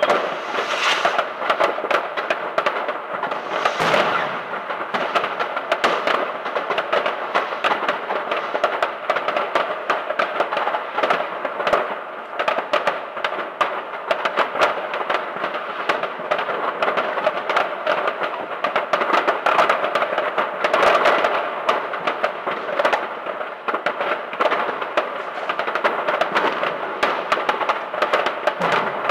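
Many fireworks going off at once: a dense, unbroken crackle of bangs and pops, with heavier bangs about four seconds in and again about two-thirds of the way through.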